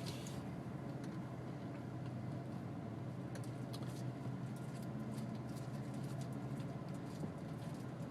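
A car driving, with a steady low road and engine hum and scattered light ticks and clicks.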